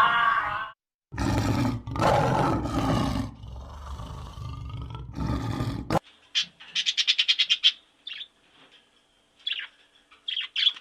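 An animal gives four loud, rough calls over about five seconds. These are followed by a quick run of small bird chirps, about ten a second, and then a few scattered chirps near the end.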